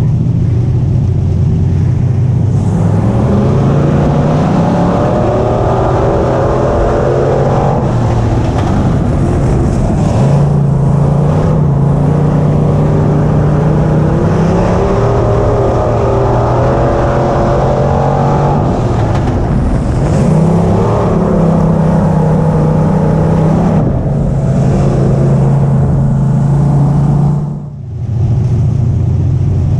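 Dirt-track limited modified race car's engine heard from inside the car, running hard, its pitch climbing and falling repeatedly as the throttle is worked through the laps, with a brief lift off the throttle near the end.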